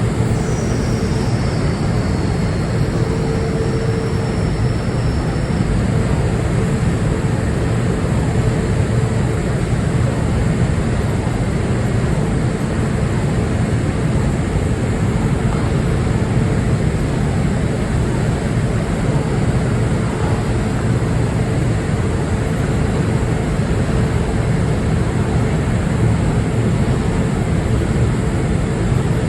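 Steady low rumble and rushing noise aboard a large car ferry under way, with a faint steady hum running through it.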